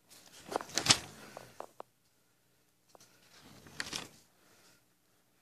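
Light rustling and handling noise: a few short rustles with clicks in the first second, a couple of small ticks, then a softer rustle near four seconds.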